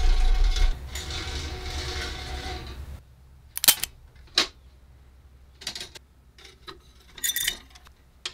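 Background music that stops about three seconds in, then a handful of short metallic rattles and scrapes as the small bead chain and the dome-shaped metal part hanging from it inside a vintage Corn Pop-O-Mat popcorn maker are handled.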